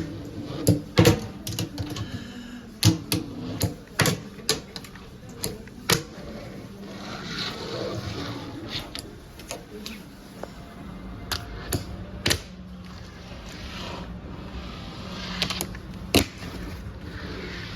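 Fingerboard clacking on a hard surface: sharp, irregular clicks of the small board popping and landing, in several clusters.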